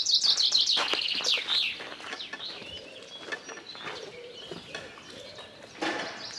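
Songbird singing: a rapid run of high repeated notes falling in pitch over about the first second and a half, followed by fainter, scattered chirps.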